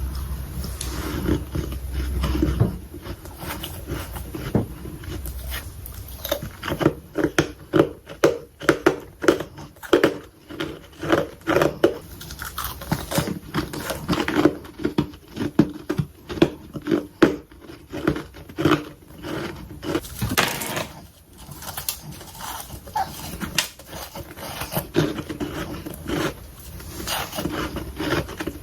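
Freezer frost being bitten and chewed close to the microphone: a steady run of short, crisp crunches with a brief lull about two-thirds of the way through.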